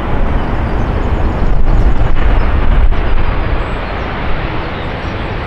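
Loud jet noise from a Boeing 747-400F freighter's four turbofan engines at takeoff thrust as it climbs away after departure, a steady low rumble that swells about two seconds in and then eases off.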